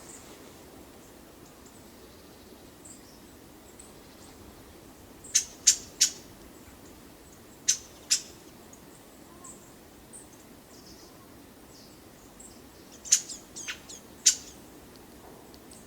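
A wild bird giving short, sharp single calls in loose clusters: three quick calls, a pair, then three or four more, over a faint steady hiss.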